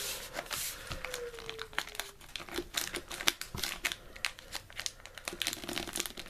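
Small spring-assisted pocket knife slitting open a package: irregular scratching, crinkling and tearing of the packaging as the blade works through it. The blade is dull enough that the cutting goes roughly and the owner wants a knife sharpener.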